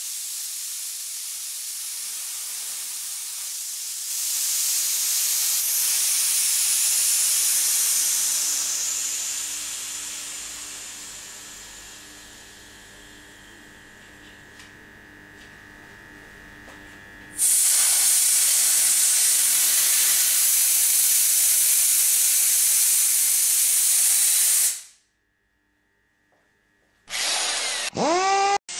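Compressed air and condensate water hissing out of the opened drain tap under a small ABAC air compressor's receiver tank, blowing the tank's water out. The hiss swells, then slowly fades as the tank pressure falls; about two-thirds through it jumps back to a loud, steady hiss that cuts off suddenly. Near the end, a short logo sound with gliding tones.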